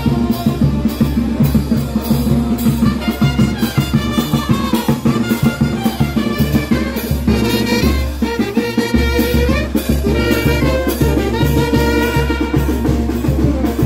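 Upbeat music with drums and a steady, even beat over a strong bass line.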